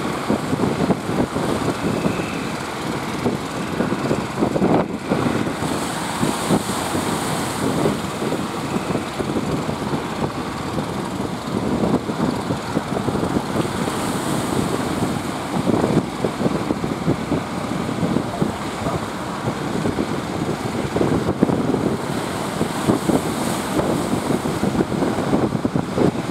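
Wind buffeting the microphone over a steady, noisy wash of boat and sea sound on a fishing boat at sea, gusting unevenly throughout.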